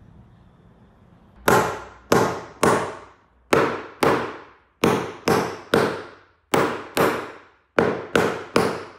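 A mallet strikes the tops of two bent-arm pipe holdfasts 13 times, in quick groups of two and three, each blow a sharp knock with a brief ringing tail. The blows drive the holdfasts down so they grip and clamp the work to the bench.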